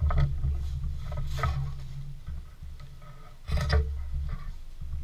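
Hands handling a cycling bib short and its wrapping: rustling and crinkling, loudest three times (near the start, about a second and a half in, and about three and a half seconds in), over a low rumble of handling noise close to the microphone.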